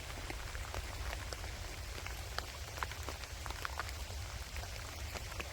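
Gentle rain falling steadily, with many small, irregular ticks of individual drops striking nearby surfaces over a soft hiss, and a low steady rumble underneath.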